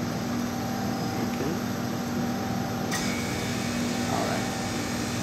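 Steady hum of a running FBM Proxima chocolate tempering machine, with a constant low tone under it. A light click about three seconds in.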